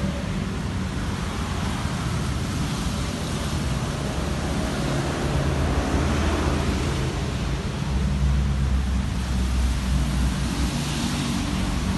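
Mercedes-Benz C180 W202 engine idling steadily: a low, even rumble with a hiss over it.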